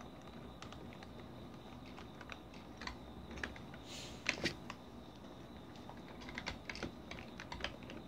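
Typing on a computer keyboard: irregular key clicks in short runs, with the loudest cluster about four seconds in and a quick flurry of keystrokes near the end.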